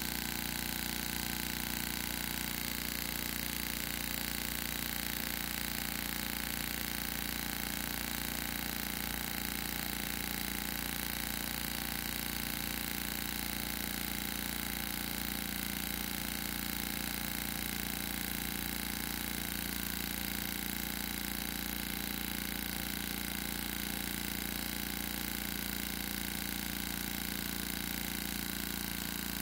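Gasparin GM 120 CO2 model aircraft engine running continuously at high speed with a steady buzzing whine, its pitch dropping slightly near the end as it slows.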